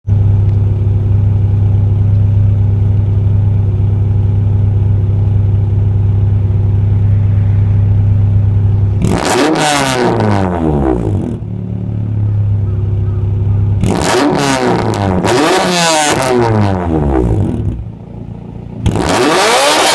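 Honda B18C VTEC 1.8-litre DOHC inline-four idling steadily, then revved up sharply and let fall back, once about nine seconds in and in a quick series of blips from about fourteen seconds on, with another rev starting near the end.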